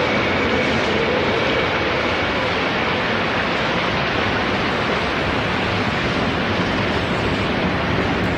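Loud, steady rush of a surging torrent of water. A faint high whine under it fades out in the first few seconds.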